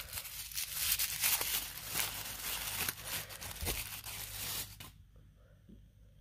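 White tissue paper crinkling and rustling in the hand as a small tumbled stone is unwrapped from it, with many small crackles; it stops suddenly about five seconds in.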